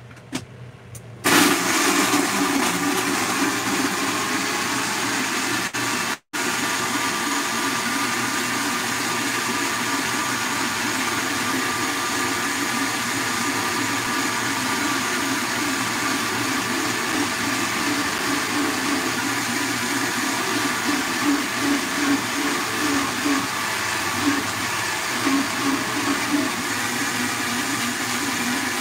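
High-powered countertop blender switching on about a second in and running steadily at high speed while a tamper pushes a thick mix down into the blades. The sound cuts out for an instant around six seconds in.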